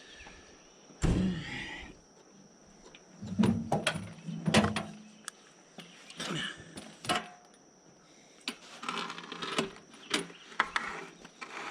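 Irregular clanks, knocks and clicks of metal parts and hand tools being handled, with a cluster of louder knocks in the middle.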